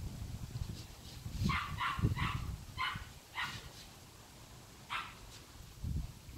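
Blenheim Cavalier King Charles Spaniel puppy giving short, high squeaky whimpers: a run of five in quick succession, then one more a second and a half later.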